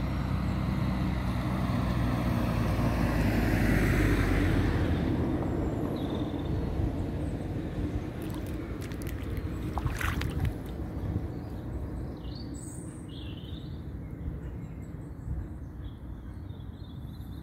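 A car passes on the wet road beside the puddle, a rushing noise that swells to a peak about four seconds in and then fades away. A low steady outdoor background follows, with a few bird chirps later on.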